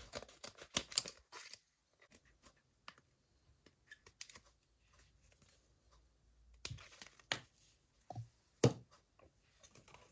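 Small scissors snipping through stiff gasket paper: a quick run of crisp cuts in the first second, then scattered faint snips. A few louder crisp cuts and paper rustles follow later, the loudest about eight and a half seconds in.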